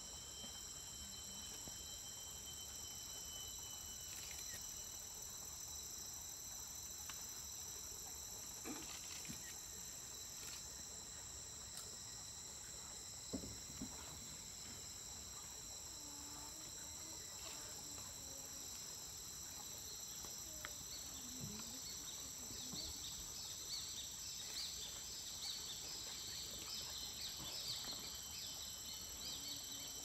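Tropical rainforest insect chorus: several insects buzzing steadily at high pitch, with a rapidly pulsing trill joining in for the last third. One brief knock partway through.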